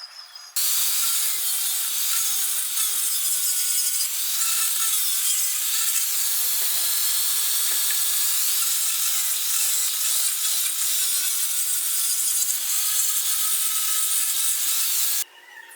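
A power tool cutting: a loud, steady, harsh noise with a faint motor whine. It starts suddenly about half a second in and cuts off just before the end.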